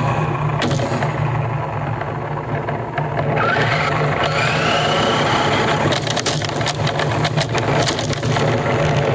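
Radio-controlled car running, with a steady low hum and scattered crackling and clicks. A motor whine rises in pitch a few seconds in as it speeds up.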